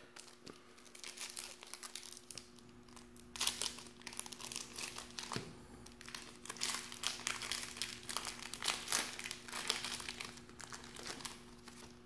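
Foil wrapper of a 1996-97 Collector's Choice Series 2 basketball card pack being opened and crinkled by hand, in irregular bursts of crackling that are heaviest in the second half.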